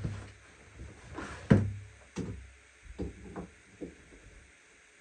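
A series of knocks and thuds from objects being handled: one loud thud about a second and a half in, then four lighter knocks, with a low hum that stops shortly before the end.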